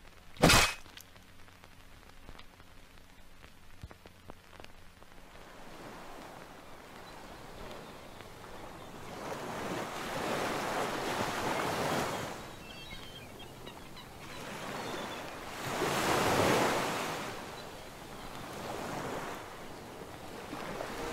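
A single sharp bang about half a second in, then near quiet. From about six seconds in, sea surf fades up, with waves breaking in slow swells that rise and ebb, loudest around ten and sixteen seconds in.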